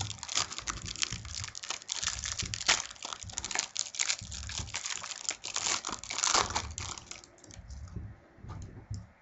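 Trading cards and their plastic packaging handled by hand: dense crinkling and clicking that thins out to a few scattered clicks about seven seconds in.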